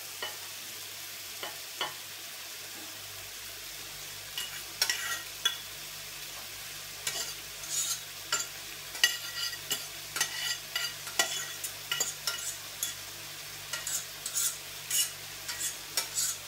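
A utensil scrapes and knocks against a stainless steel saucepan as chicken and mushroom salad is scooped out of it, in irregular clicks from about four seconds in. Underneath, a steady sizzle comes from beef patties pan-frying in a skillet on a gas stove.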